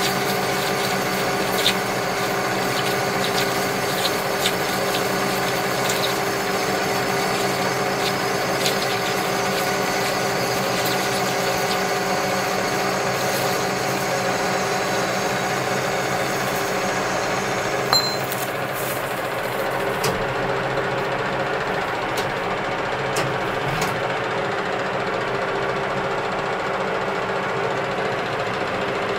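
Metal lathe running steadily, its motor and gear train giving a humming whine, with occasional sharp ticks. About two-thirds in, the higher hiss drops away while the machine keeps running.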